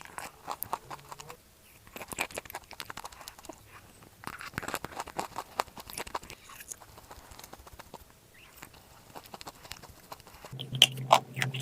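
Chewing crunchy chalk clay: a run of short, crisp crunches and clicks, coming faster and louder near the end.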